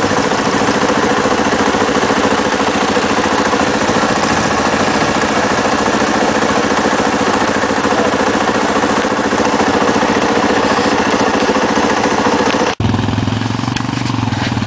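ATV engine running hard at steady high revs while spray flies from its wheels in the mud. About 13 seconds in it cuts off abruptly, giving way to a lower engine hum.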